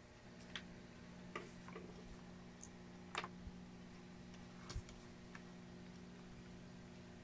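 Plastic Lego bricks clicking as they are handled and pressed together: about half a dozen sharp, separate clicks spread irregularly over several seconds.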